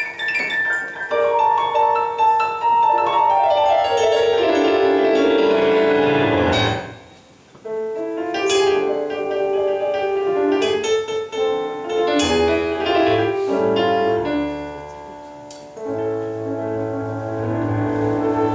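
Piano playing a klezmer freylekh passage on its own, with a fast run sweeping down in pitch about four to seven seconds in and a brief pause just after. Near the end the clarinet comes back in over a bass line.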